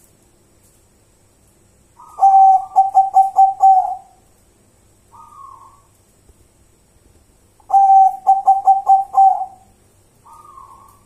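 Zebra dove cooing: two phrases, each a quick run of six or seven staccato coo notes, each followed by a short, fainter note.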